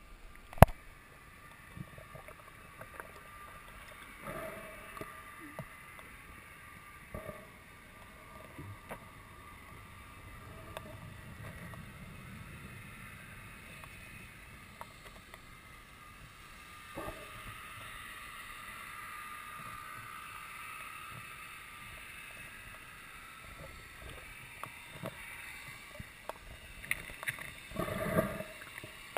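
Muffled underwater noise picked up by a camera in a waterproof housing, with scattered knocks and bumps: one sharp knock under a second in and a cluster of them near the end.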